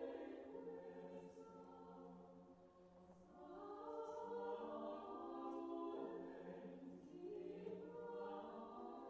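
Soft background music: wordless choral voices holding long, slow chords that change every second or two.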